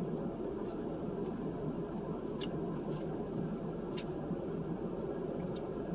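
Close-up chewing and mouth sounds while eating fast food: a few short, sharp smacks and clicks over a steady low background hum.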